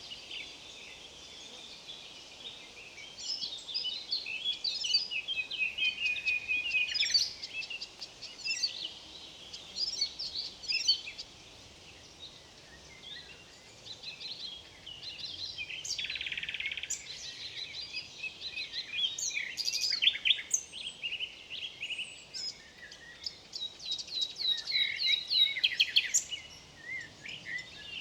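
Several songbirds singing and calling at once in overlapping quick chirping phrases and trills, with a buzzy note about halfway through and a fast run of repeated notes near the end, over a faint steady background hiss.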